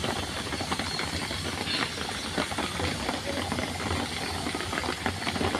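A small engine running steadily with a rattly, hissing sound.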